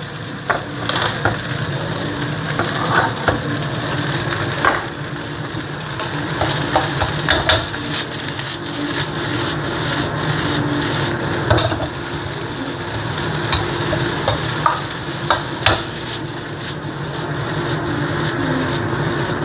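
Salted-egg fried rice with scallions sizzling in a wok as it is stir-fried, the spatula stirring and scraping through it with frequent sharp clinks against the pan.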